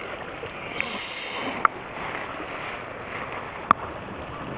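Steady rush of flowing river water, with three sharp clicks from handling the catch in the landing net, the loudest near the end.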